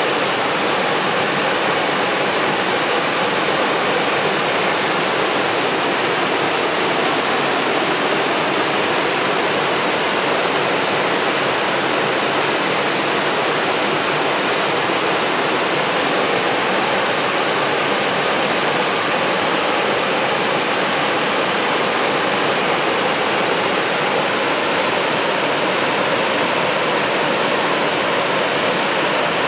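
Waterfall cascading over rock ledges into a pool: a steady, unbroken rush of water.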